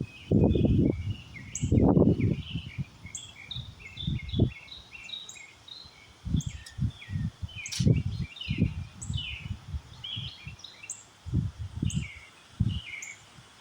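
Gusty wind buffeting the microphone in irregular low rumbling blasts, with many small birds chirping steadily behind it.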